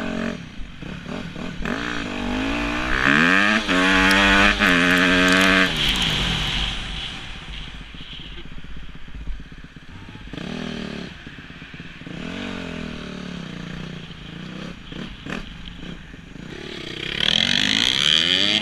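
Dirt bike engine revving hard from the rider's seat. Its pitch climbs to a high held rev a few seconds in, drops away, blips a couple of times, and climbs again near the end, over steady wind rumble.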